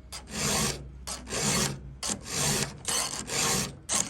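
Round chainsaw file rasping across a saw-chain cutter in short, even strokes, about two a second. The tooth of a dull, improperly filed chain is being sharpened by hand.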